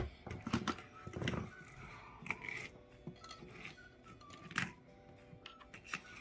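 Faint background music with scattered clicks and taps of small plastic and rubber toys being handled and set down.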